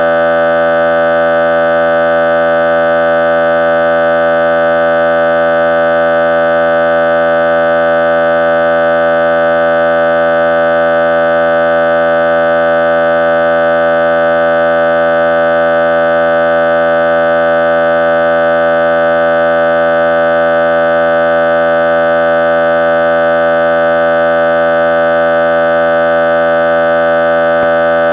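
Loud, steady electronic drone of several held tones at once, with no change in pitch or level.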